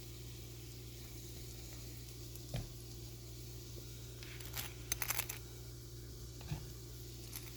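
Food sizzling in a frying pan over a steady low hum, with a knock about two and a half seconds in, a quick cluster of sharp utensil clicks around five seconds in, and another knock near the end.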